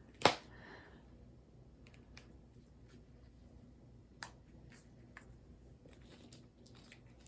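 One sharp click about a quarter second in, then a handful of faint, scattered taps and clicks, over quiet room tone.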